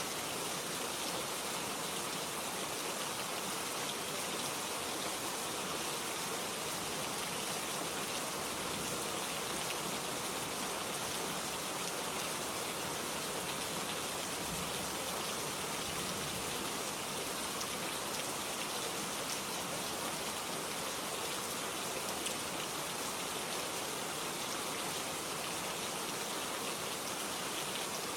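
Steady rain falling, an even hiss with fine scattered drop ticks throughout.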